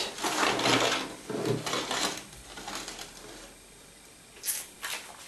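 Frying pan being handled on a ceramic hob: soft scraping noise in the first two seconds, then a few sharp knocks and clatters near the end as the pan is gripped by its handle and moved.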